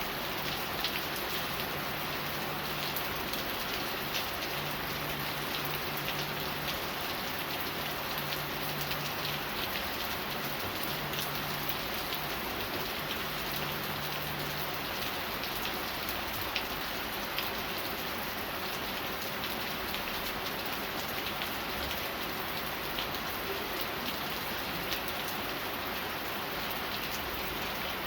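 Steady rain falling, with frequent sharp ticks of single drops striking close by. A low hum comes and goes during the first half.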